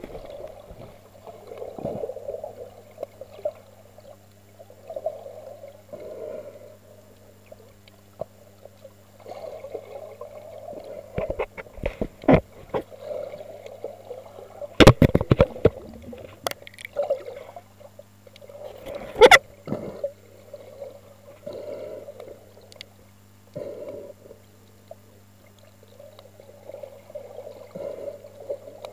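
Muffled underwater water noise heard through a waterproof camera housing while free-diving: swishes of moving water every second or two over a steady low hum. A few sharp knocks come in the middle, the loudest about halfway through and again a few seconds later.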